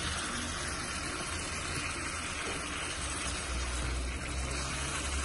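Keema with tomatoes and yogurt sizzling in a frying pan on the stove, a steady hiss over a low hum.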